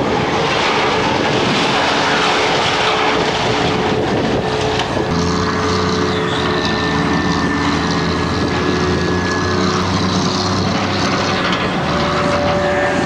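Engine of heavy demolition machinery running steadily, with a noisy clatter over it; its engine note grows stronger about five seconds in.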